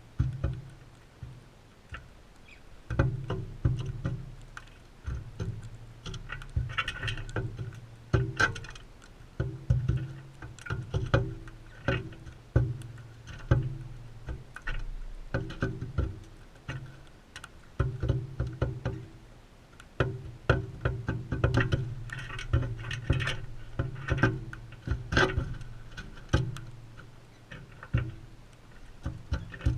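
Crimson rosellas feeding right beside the camera: a busy, irregular run of clicks, taps and knocks from beaks and feet on seed and the feeder, with low thuds where they bump the camera.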